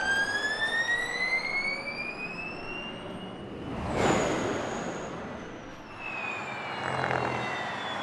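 Mahindra Racing Gen3 Formula E car's electric drivetrain whining and rising steadily in pitch as it accelerates away. About four seconds in, a rush of tyre and air noise peaks as it passes, and the whine then falls in pitch.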